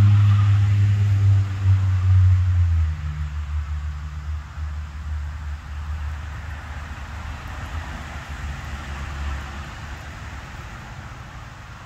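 A motor vehicle's engine hum, loudest in the first three seconds and then fading away steadily as it moves off.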